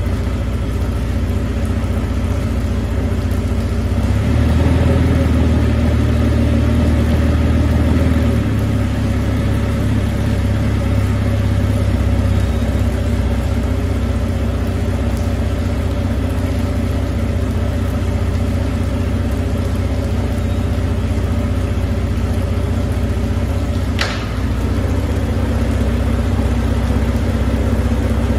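Suzuki 350 outboard engines idling on flushing water from a garden hose, revved briefly about four seconds in before settling back to a steady idle. A short, high-pitched chirp cuts through late on.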